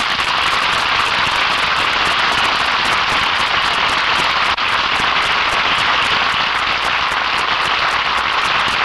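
Studio audience applauding: a steady, dense clapping that starts abruptly as the stars sign off and thins out at the end.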